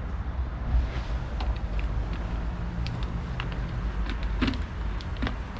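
Steady low outdoor rumble, with scattered light clicks and taps of plastic parts being handled inside the car door, the loudest about four and a half seconds in.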